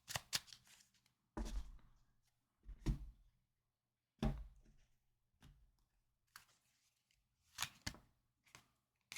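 Tarot cards being shuffled and handled on a table: a series of separate short taps and soft thuds, about eight in all, the heaviest about one and a half, three and four seconds in.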